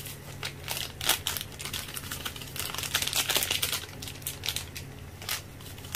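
Pot of sinigang broth boiling, with irregular popping and crackling of bubbles over a steady low hum.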